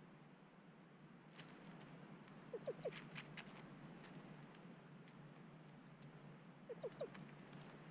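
A wild grouse giving soft low clucks in quick runs of three, twice, with scattered light clicks and taps around them.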